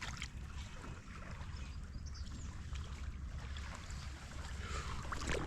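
Faint, steady low rumble of water and light wind around a kayak on calm, shallow water, with a few light clicks.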